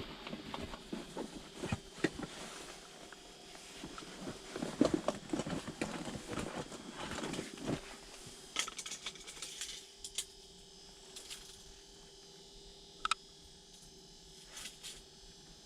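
Scattered rustling and small clicks of hands handling a freshly caught walleye and fishing gear, busiest in the first half. After that it goes quieter, with a faint steady hum and a few isolated ticks.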